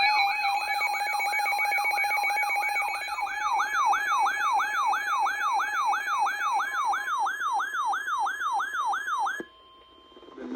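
Electronic emergency alert tone: a siren-like pitch sweeping up and down about two and a half times a second over steady tones. It cuts off abruptly about nine and a half seconds in, announcing a severe thunderstorm warning broadcast.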